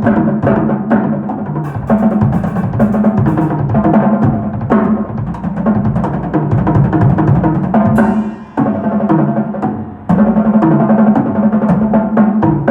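A drum kit played through a sound check: a busy groove of bass drum, snare and cymbal hits. About eight seconds in, a cymbal crash is followed by a softer passage, then full playing comes back near the end.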